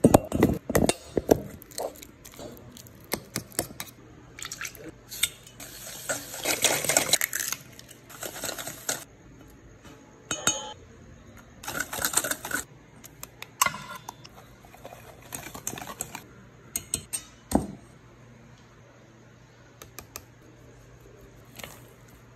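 Kitchen utensils knocking, clinking and scraping in a stainless steel mixing bowl as banana batter is mashed and mixed: a run of sharp clinks with longer scraping stretches, dying down for the last few seconds.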